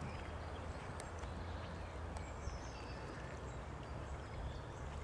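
Outdoor ambience at a pond: steady wind rumble on the microphone, with a few faint, distant bird calls around the middle.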